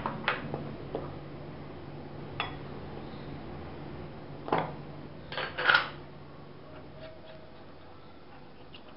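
Several short clinks of glass on glass as a small glass bowl is knocked against the rim of a glass mixing bowl to empty flour out of it. The loudest cluster of clinks comes a little past halfway.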